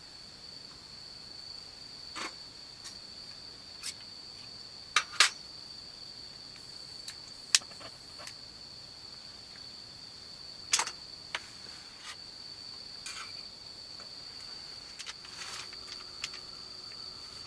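A cricket's steady high trill, with scattered sharp clicks and knocks over it. The loudest clicks come in a pair about five seconds in, once more at seven and a half, and once near eleven seconds.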